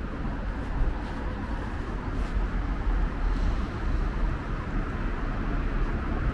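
Steady road traffic noise of a busy city street: a continuous low rumble of passing cars and vans.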